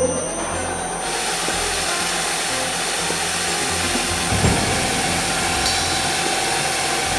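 Pipe drilling machine running and drilling into a tube: a steady, even machine noise with a constant whine running through it.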